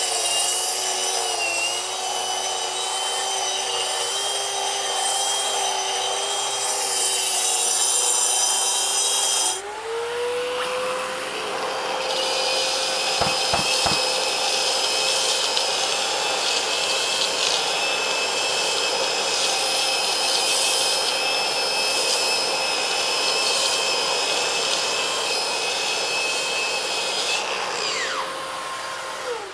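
Hilti DGH 130-22 cordless concrete grinder with a finishing pad running against a concrete wall, giving a steady, high motor whine with grinding noise. About a third of the way in the sound breaks off and the motor spins back up to a steady speed. Near the end it winds down as the grinder is stopped.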